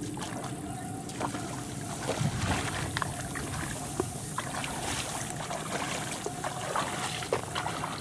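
Footsteps wading into a flooded rice paddy: muddy water sloshing and rice plants rustling in short irregular bursts over a steady background hiss.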